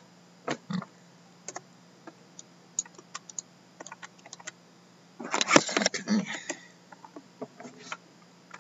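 Typing on a computer keyboard: scattered single keystrokes, with a quick run of keys about five seconds in.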